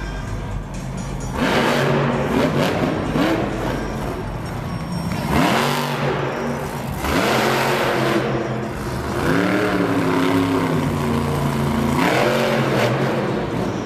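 Monster Mutt monster truck's supercharged V8 revving in repeated surges, its pitch climbing and dropping back about six times.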